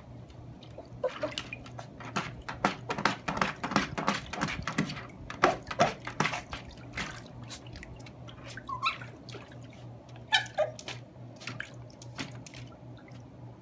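Yorkshire terrier splashing and pawing in the shallow water of a plastic kiddie pool: many quick splashes, busiest for the first seven seconds or so, then a few more near the end.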